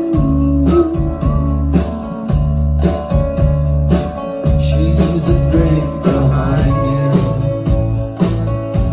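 Live band playing an instrumental break with no vocals: a steady drum beat, bass and guitar, with bending lead lines in the second half.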